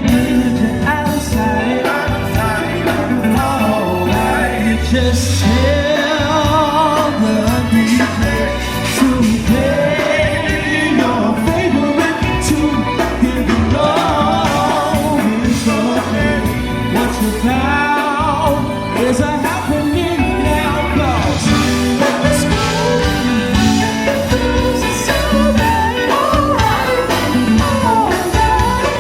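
A band playing loud music with a lead singer over a steady low beat.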